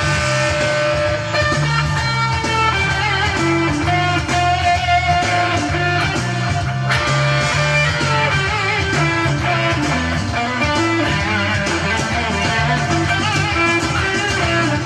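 Gretsch G2622T Streamliner centre-block electric guitar being played, a continuous passage with low notes underneath and some higher notes wavering with vibrato.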